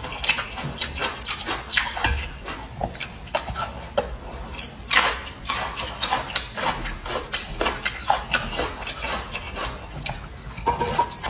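Close-miked eating sounds: chewing with irregular wet smacks and clicks of the mouth, several a second.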